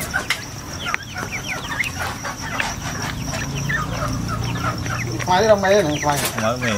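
Young chickens feeding from a dish, giving many short, falling peeps while their beaks click against the dish. Near the end a louder, low, wavering call lasts about a second and a half.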